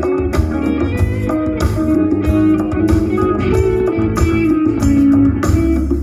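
Live rock band playing at a sound check: electric guitar over bass guitar and a drum kit keeping a steady beat.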